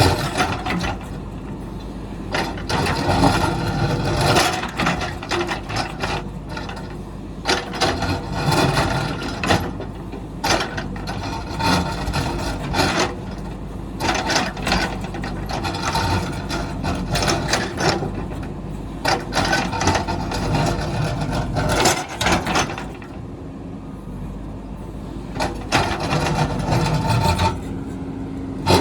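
JCB backhoe loader working rocky ground: its diesel engine runs steadily under repeated irregular scraping and knocking of the steel bucket against rock and stone.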